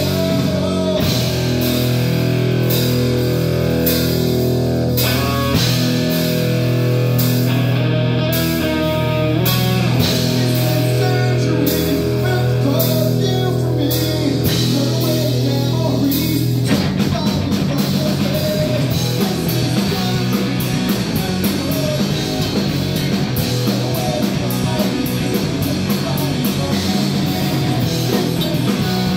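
Live rock band playing: electric guitar, bass guitar and drum kit with a singer. Held chords punctuated by cymbal crashes give way, a little past halfway, to a faster, denser part.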